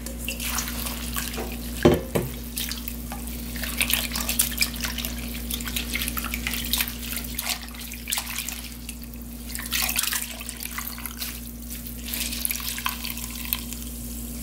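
Water splashing and sloshing as hands swish and knead blanched castor bean leaves in a stainless steel bowl of water, with drips as the wet leaves are squeezed out. One sharp clunk about two seconds in, over a steady low hum.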